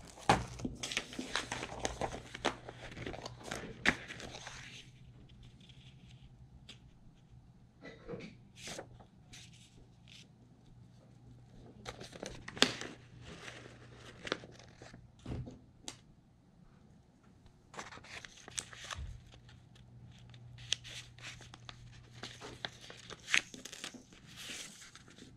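Paper sheets and a thin plastic wrapper rustling and crinkling as they are handled on a wooden table. The rustling is dense for the first few seconds, then comes in scattered short rustles and light knocks.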